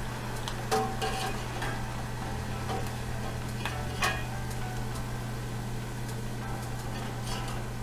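Potato fries sizzling in hot oil in a stainless steel saucepan while a perforated metal skimmer scrapes and clinks against the pan as it lifts them out. The sharpest clinks come just under a second in and about four seconds in.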